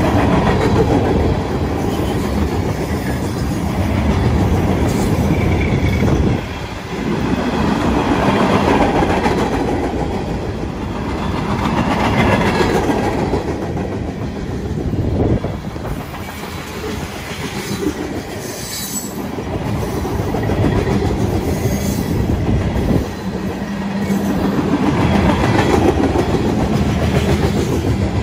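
Freight cars of a manifest train rolling past: a steady rumble of steel wheels on rail with clickety-clack over the rail joints, swelling and dipping as the cars go by, with two brief sudden dips.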